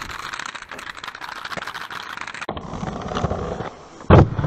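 Roces aggressive inline skate wheels rolling over brick paving, a steady crackling rattle. About four seconds in comes a sudden loud thump as the skates land on a low metal-capped rail.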